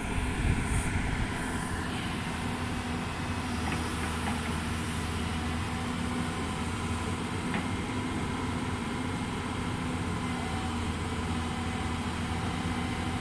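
Heavy diesel engine of a Hyundai tracked excavator running steadily, a little louder in the first second or so.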